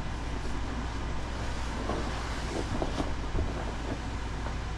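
Steady rushing hum of an older Sleep Number bed's two air chambers deflating through the bed's pump. A few faint rustles and knocks of the foam panel and cover being handled come about halfway through.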